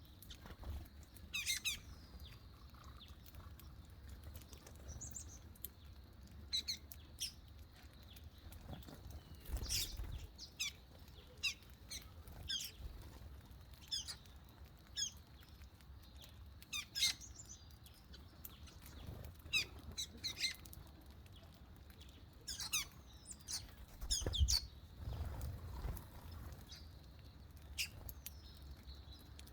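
Small birds calling in short, sharp, high chirps and squeaks, one or a few every second or so, over a steady low rumble.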